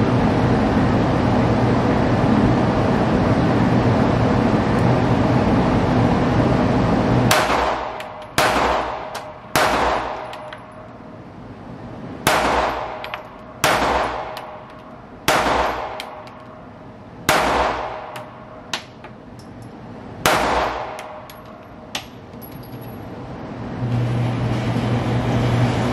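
A steady rushing hum, then a handgun fired eight times, one shot at a time, over about thirteen seconds. Each shot is a sharp crack that rings off the walls of the indoor range. A couple of faint clicks fall between the later shots.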